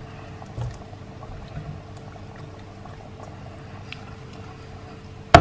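Thick coconut fish curry with pomfret pieces bubbling gently in a pot on the stove, under a faint steady hum. A single sharp knock near the end.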